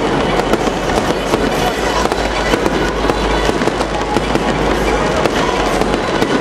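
Aerial fireworks going off in rapid succession: a dense, unbroken run of pops and crackles.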